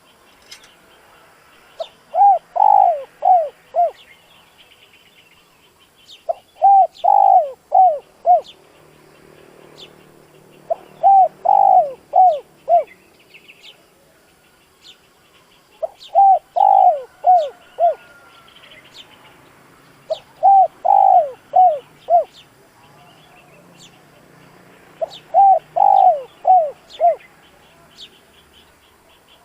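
Spotted dove cooing, a decoy male's call used to stir up wild doves. Six phrases of four or five notes each come about every four and a half seconds, with faint high chirps of small birds between them.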